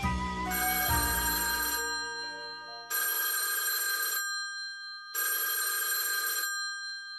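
A few notes of cartoon music, then an electric bell rings three times: long buzzing rings about a second apart.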